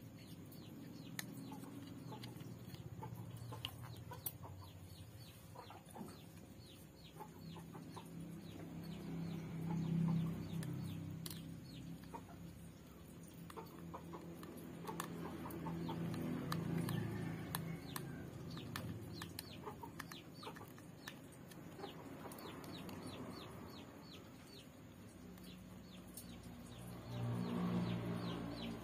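Chickens clucking, with many short high clicks or chirps scattered among the clucks.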